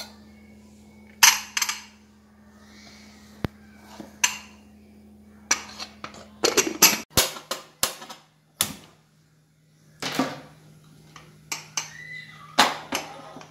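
Aluminium pressure cooker being closed and set on a gas burner: a scattered series of sharp metal clanks, knocks and clicks from the lid and the pot, thickest in a quick cluster midway.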